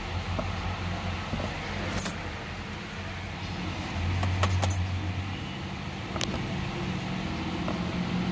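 A steady low hum with a few scattered light clicks and knocks, louder for a moment about halfway through.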